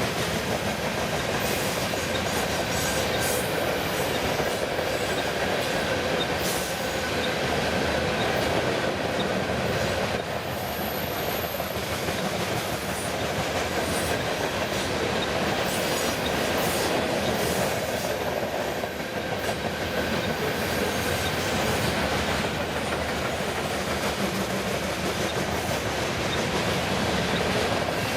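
Freight train cars rolling past at a steady speed: a continuous rumble of steel wheels on rail.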